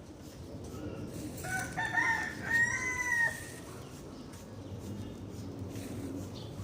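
A rooster crows once, about a second and a half in: a few short broken notes and then a longer held note.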